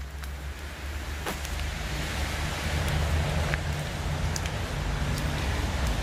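Steady rain falling, with a few sharp single drop ticks, over a constant low rumble.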